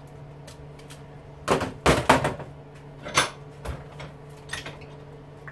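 Clacking and knocking of tools and metal motor parts being handled while an electric motor is stripped for its copper. A cluster of sharp knocks comes about a second and a half in, with a single clack about a second later and a lighter one near the end, over a low steady hum.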